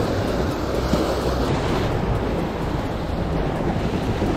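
Small waves washing and splashing against jetty rocks, with wind buffeting the microphone.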